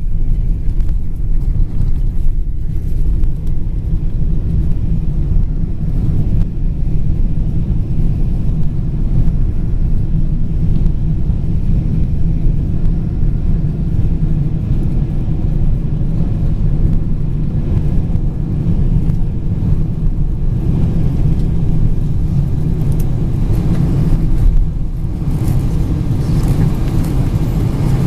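Airliner cabin noise from inside the plane: a steady, loud low rumble of the jet engines and airflow on the approach to landing. About three-quarters of the way through, a brighter, hissier noise builds, with a brief jolt in level near the end.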